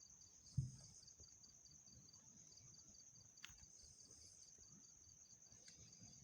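Near silence, with a faint, steady, high-pitched cricket-like chirping pulsing evenly, and one soft low thump about half a second in.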